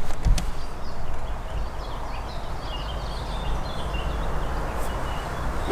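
Outdoor ambience: small birds chirping over a steady low rumble, and right at the very end the sharp click of an iron striking a golf ball.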